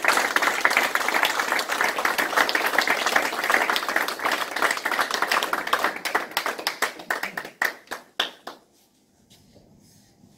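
A small crowd applauding. Dense clapping thins to a few scattered claps about six to eight seconds in, then stops.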